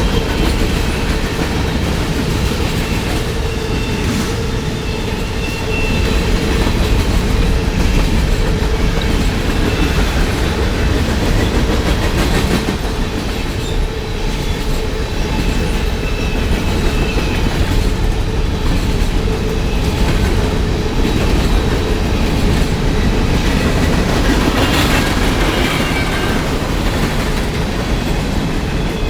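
A train rolling steadily past on the mainline, its wheels clattering over the rail joints, with faint high wheel squeals about twelve seconds in and again near the end.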